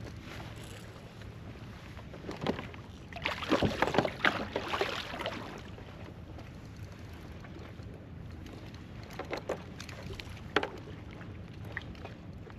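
Water sloshing and splashing around a fishing kayak, with a loud burst of splashing about three seconds in that lasts a couple of seconds, then a few sharp knocks against the hull later on.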